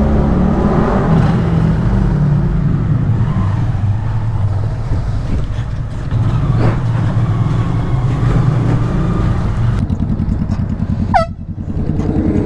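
Honda Grom's single-cylinder engine running under way over wind rush, its note shifting with throttle. About ten seconds in it drops to a lower, pulsing note, and a brief high falling chirp sounds just after.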